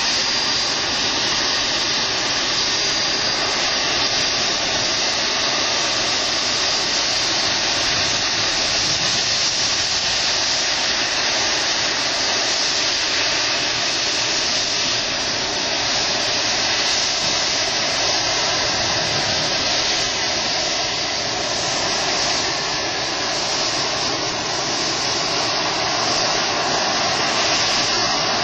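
Boeing 747-200's jet engines at taxi power as the airliner rolls past: a steady, loud hiss with a high-pitched whine.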